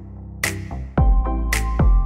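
Background music with a steady beat, a sharp hit about once a second; a deep bass comes in about halfway through and the music gets louder.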